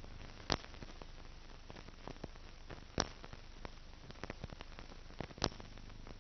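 Surface noise of a silent film's blank soundtrack: a steady hiss with scattered crackles and three loud pops, spaced about two and a half seconds apart.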